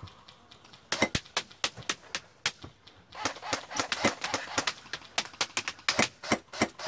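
Airsoft guns firing: sharp irregular pops, starting about a second in, in single shots and short rapid strings, with a denser flurry about three seconds in.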